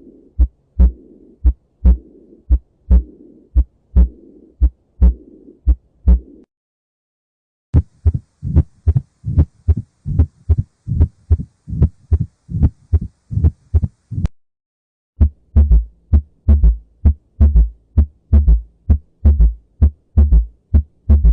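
Recorded abnormal heart sounds (auscultation samples of diastolic abnormalities), played as three separate clips with short silences between them. Each clip is a steady run of heartbeats. In the first, a rushing murmur fills the gaps between the beats; the second and third have plain beats with little between them.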